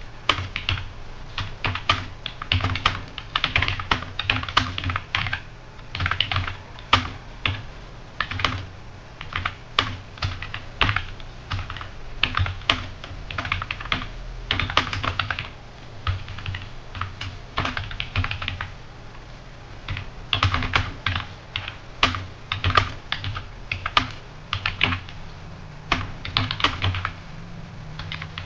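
Fast typing on a computer keyboard: a dense run of keystroke clicks with a few short pauses.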